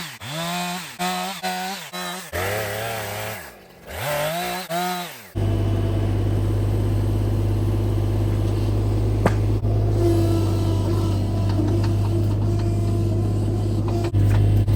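For about five seconds, short wavering pitched sounds come and go. Then an engine starts running steadily and keeps a low, even drone.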